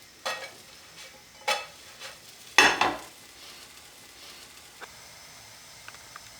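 A pancake frying in coconut oil in a pan, with a faint steady sizzle. Three short scrapes of a utensil against the pan come in the first three seconds; the third is the loudest, with a thump, as the pancake is turned.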